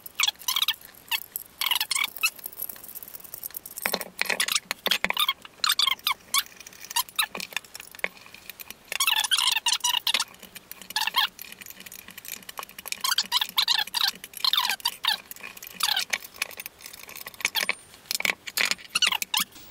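Metal parts of a monitor-arm pole clamp clinking and rattling as it is unscrewed with an Allen key and taken off the pole. The clinks come in irregular clusters with short pauses between them.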